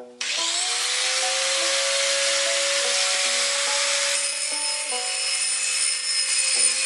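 Angle grinder switching on about a quarter second in and running with a steady whine. About four seconds in its sound changes as it grinds against a forged iron bowl, polishing the metal.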